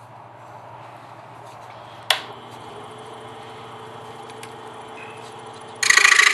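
A sharp click about two seconds in, then a low steady hum, and near the end the DeWalt scroll saw starts up loudly with its blade running.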